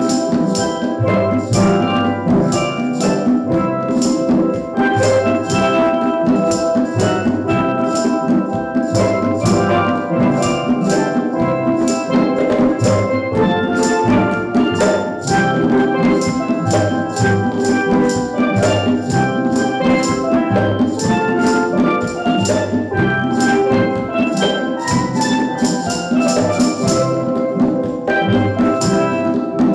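Steel drum band playing a tune, with many pans sounding notes together over low bass pans and a steady percussion beat.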